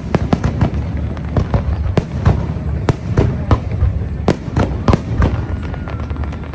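Consumer fireworks going off: a rapid, irregular string of sharp bangs and cracks, several a second, over a steady low rumble.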